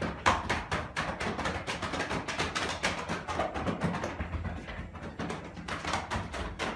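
Open hands patting and slapping a person's clothed body in a quick, continuous run of light slaps, many a second, moving from the shoulders and back down toward the legs. It is a pachi-pachi tapping routine meant to loosen the body.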